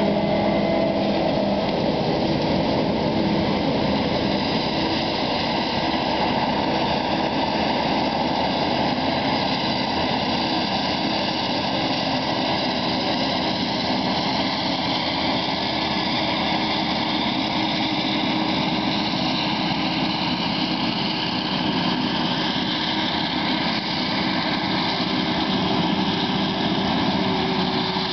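Claas Jaguar 970 self-propelled forage harvester running steadily under load as it chops maize and blows it into a trailer running alongside, with a John Deere tractor's engine in the mix. A tractor engine is loudest in the first second or two as it passes close, then fades into the steady harvester noise.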